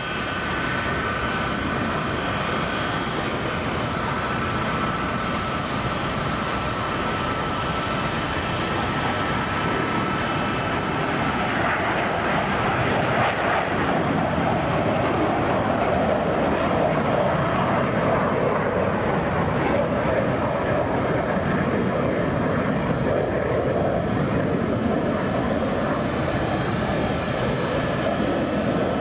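Four turbofan jet engines of a C-5M Super Galaxy at takeoff power: a steady loud rush with high whining tones. The noise swells about halfway through, then its main pitch settles lower.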